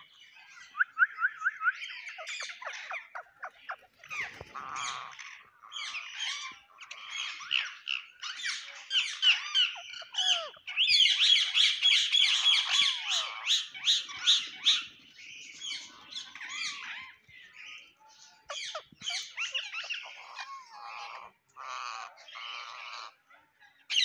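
Rose-ringed parakeets calling: a string of high squawks, chirps and gliding whistles, thickening into a fast, loud run of chattering calls between about 11 and 15 seconds in.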